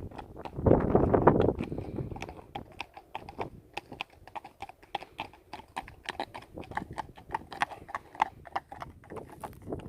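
A gust of wind buffets the microphone for about the first second and a half. Then comes a quick, irregular run of sharp clicks or taps, several a second.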